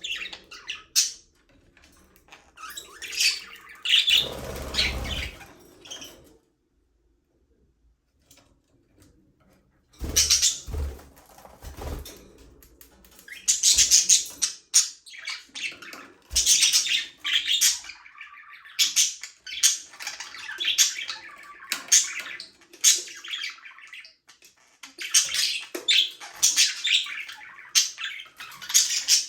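Budgerigars chirping, chattering and squawking in short bursts. The calls stop for a few seconds about a quarter of the way in, then pick up again.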